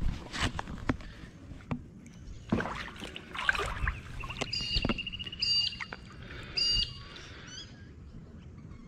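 Water splashing as a large mullet thrashes in shallow water while held by hand. Midway a bird calls three times, about a second apart, in short high whistled notes with a quick trill.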